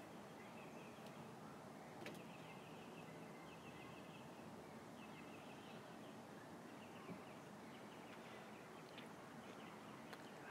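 Near silence: faint outdoor ambience with a distant bird trilling in short repeated bursts.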